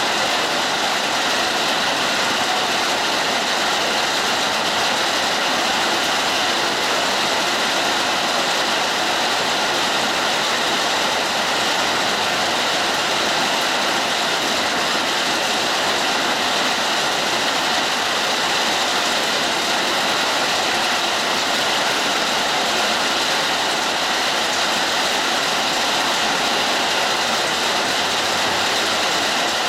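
Hard rain falling in a steady hiss.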